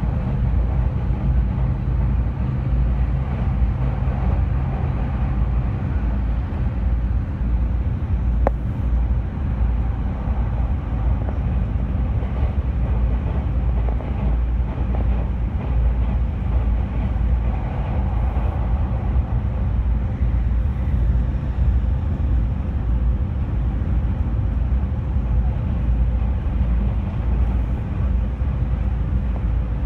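JR East E217-series electric train running steadily at speed, a constant low rumble of wheels and running gear heard from inside the carriage. A single sharp click comes about eight and a half seconds in.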